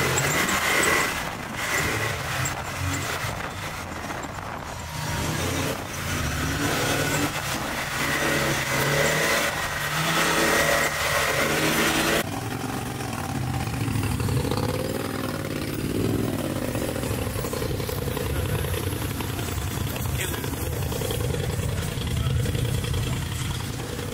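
Off-road vehicle engines running and revving, with an abrupt cut about halfway through to a steadier engine note that rises in revs a few times.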